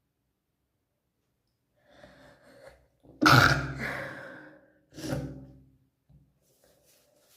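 A girl's stifled sneeze: a few soft breaths as it builds, then a sudden held-back sneeze about three seconds in, followed by a shorter second burst about five seconds in.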